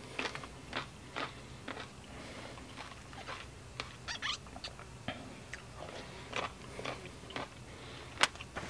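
A person eating blueberries and milk with a spoon from a plastic cup: chewing, with small, irregular spoon clicks and scrapes against the cup. One sharper click comes near the end.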